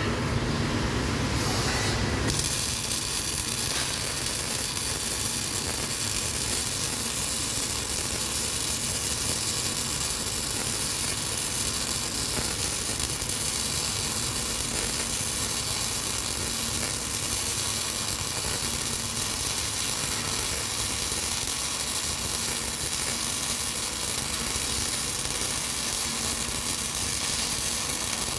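Electric welding arc starting about two seconds in and then burning steadily with an even hiss while a fillet weld is laid in the 'boat' position.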